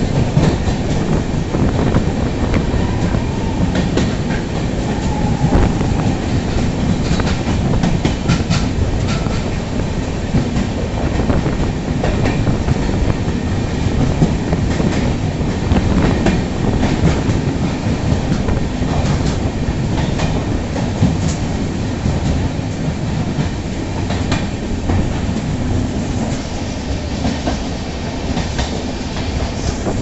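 Passenger train running, heard from inside a coach: a loud, steady rumble of wheels on rail with irregular clicks and clattering from the wheels and carriage.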